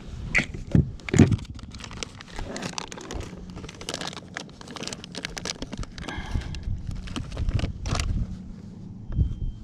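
Close handling noise: rapid crackling, scraping and clicks, with a few louder knocks in the first second and a half.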